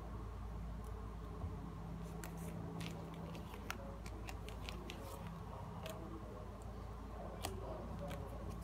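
Tarot and oracle cards being picked up and gathered by hand off a cloth, giving scattered light clicks and taps of card against card. A steady low hum runs underneath.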